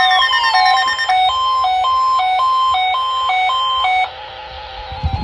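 Electronic alert alarm sounding a loud two-tone warble, alternating between a lower and a higher pitch about twice a second. About four seconds in it drops to a quieter, faster warble, with a couple of low thumps near the end.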